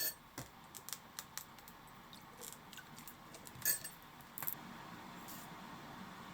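Light, scattered clicks and clinks of a utensil against a small bowl while the stir-fry sauce of soy sauce, sugar, sake and ginger is mixed.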